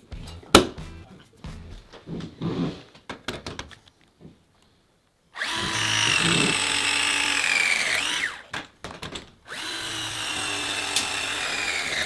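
Cordless electric pipe bender bending 28 mm copper pipe: its motor runs with a steady whine for about three seconds, starting about five seconds in, and the pitch sags near the end of the run as it takes the load. A second run starts a little after that and carries on. It is preceded by scattered knocks and clicks as the pipe and tool are handled.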